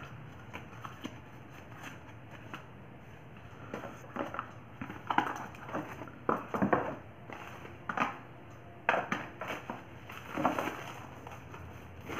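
Packaging being handled: a cardboard box and a plastic mailer bag rustling and crinkling in irregular bursts, busier from about four seconds in.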